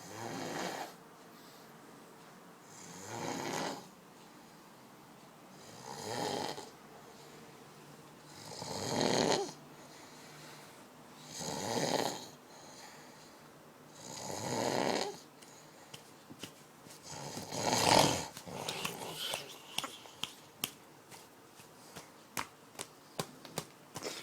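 Snoring: seven rough snores, one about every three seconds, the last the loudest. After it comes a run of short, sharp, irregular clicks.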